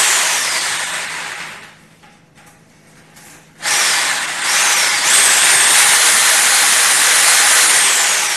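Corded electric drill boring holes into a wall for wall plugs. It runs in two spells: a short one fading out about two seconds in, then a longer, steadier one from about halfway, with a high whine that drops as it slows near the end.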